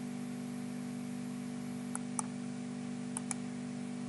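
Computer mouse button clicked twice, each click a sharp press-and-release pair. A steady low hum runs underneath.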